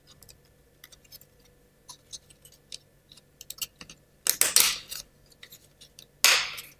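Laser-cut plywood model parts being handled and fitted together: light wooden clicks and taps, then two short scraping pushes as the parts slide into their slots, the first a little past four seconds in and the second near the end.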